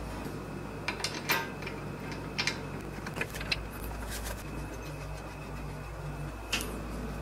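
Scattered light metallic clicks and clinks as bolts and hands work at the joint between a steel lathe bed and its leg stand, over a steady low hum.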